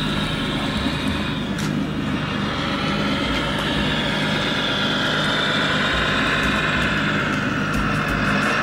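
Radio-controlled scale-model MAN three-axle tipper truck driving slowly over gravel: a steady mechanical hum and whine from its drive, with one sharp click about one and a half seconds in.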